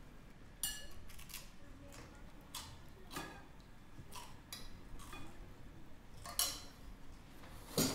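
Spoons and crockery clinking lightly and irregularly as food is served and eaten from bowls and plates, about a dozen short clicks spread over the stretch.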